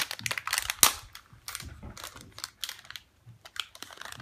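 Plastic packaging of a Shopkins toy crinkling and crackling as it is handled and torn open: a quick run of sharp crackles, the loudest snap just under a second in.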